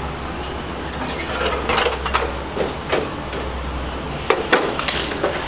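Light knocks and clatters as an aluminium rudder skin studded with clecos is handled and set down on a steel-topped workbench. A handful of sharp clicks come in small clusters, over a steady low hum.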